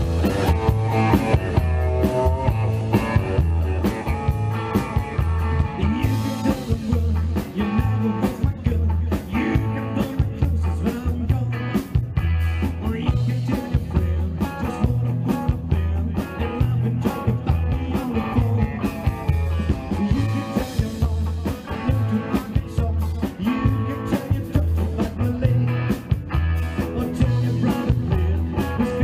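A live rock and roll band playing at full volume. An upright double bass drives a steady pulsing beat under an electric guitar, and a man sings into the microphone.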